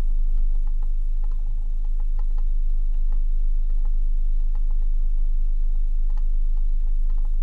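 Low, steady rumble of an off-road vehicle idling or creeping on a dirt trail, picked up by a camera mounted on the vehicle, with scattered light ticks.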